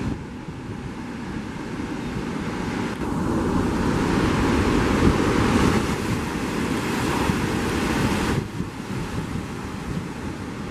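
Heavy sea surf breaking and washing against a rock stack, with wind buffeting the microphone. The wash swells louder about three seconds in and drops off suddenly about eight seconds in.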